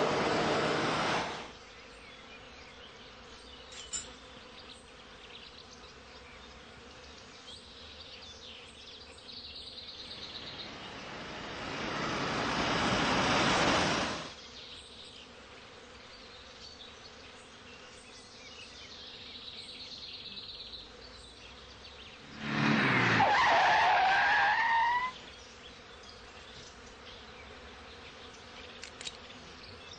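Vehicles passing on a country road, each a swelling rush of engine and tyre noise: one at the start, one building up and cutting off about halfway through, and a third about two-thirds of the way in with a short squeal falling in pitch. Faint insect buzzing fills the quieter stretches between.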